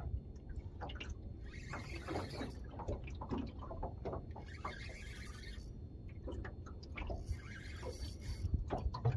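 Fishing reel being wound in repeated spurts as the rod is pumped, bringing up a heavy fish from the bottom, with small clicks from the reel and rod handling over a low steady rumble.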